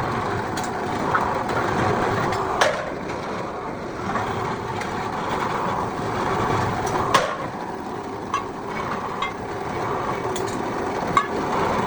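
Steady workshop din with sharp knocks, three loud ones a few seconds apart and several fainter ones.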